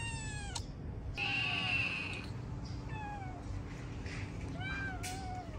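A kitten meowing again and again: four meows, the second one longer, louder and harsher than the rest, the others short and falling or rising and falling in pitch.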